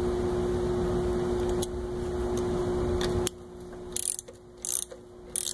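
Torque wrench ratchet clicking in short rapid runs as it tightens the castellated nut on a connecting rod cap. A steady hum with a few separate clicks comes first and cuts off about three seconds in, just before the ratcheting starts.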